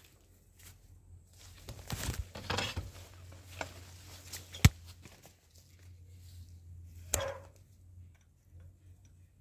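Rustling and scraping noises of a handheld camera moved through garden foliage, with one sharp click near the middle and a shorter burst a little later, over a faint steady low hum.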